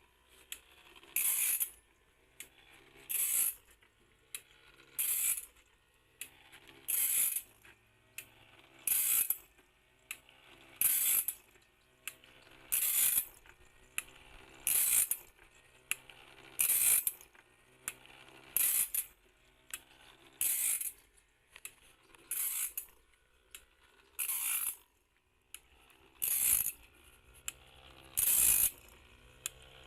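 Automatic bandsaw blade sharpener grinding the blade tooth by tooth: a short, high grinding stroke about every two seconds, with a quieter mechanical clicking of the feed between strokes.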